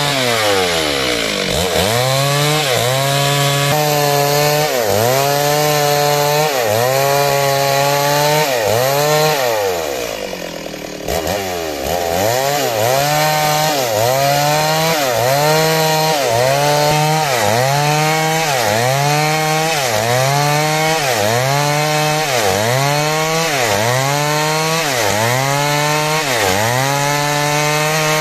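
Stihl chainsaw ripping lengthwise through timber, its engine note dipping under load and recovering about once a second. About ten seconds in the engine falls off briefly and then revs back up.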